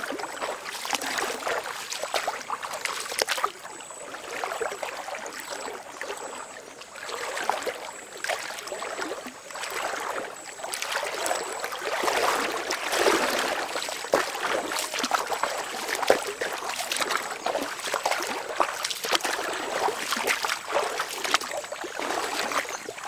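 Shallow water splashing and trickling as an otter swims and dives through it: an uneven run of small splashes and ripples that swells and fades.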